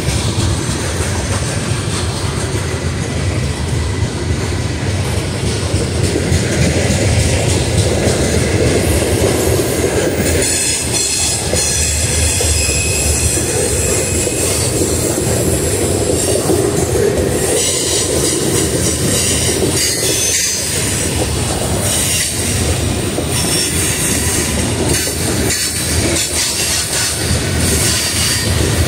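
Freight train of covered hopper cars rolling past on a curve: a steady rumble and clatter of wheels on rail, joined about ten seconds in by a high-pitched squeal from the wheels on the curve that comes and goes.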